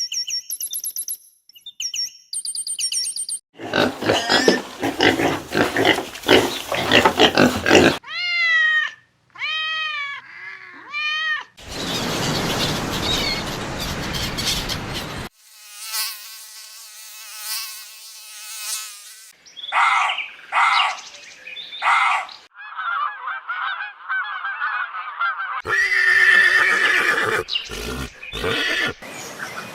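A string of different animal calls cut one after another, each lasting a few seconds: rapid high chirps, noisy rasping stretches, a run of repeated arching calls, and a steady pitched call, with hard cuts between them.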